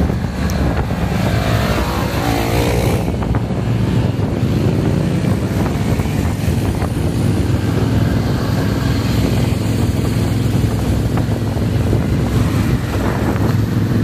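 Motorcycle engines running steadily during a group ride, with a rising engine note about a second or two in.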